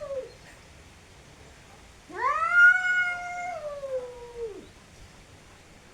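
Domestic cat's long, drawn-out yowl in a standoff between cats: it starts about two seconds in, rises, holds, then slides down in pitch and fades after some two and a half seconds. The end of another yowl trails off just at the start.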